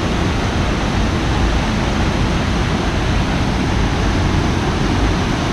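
Steady rush of a river cascading over rock ledges and down a small waterfall.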